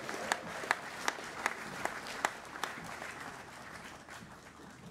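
Audience applauding, with one person's loud claps close by, about two and a half a second for the first few seconds; the applause then fades away.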